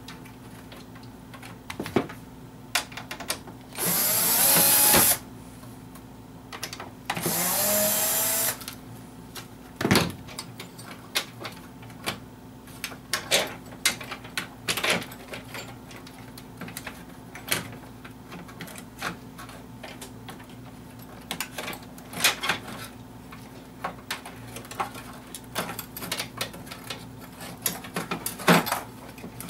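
Two short runs of a small electric drill-driver, the second rising in pitch as the motor spins up. Scattered clicks and knocks from handling the amplifier's metal chassis and circuit board follow.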